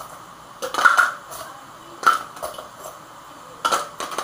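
Kitchenware being handled out of view: several separate clinks and knocks, with a cluster about a second in, more around two seconds, and two close together near the end.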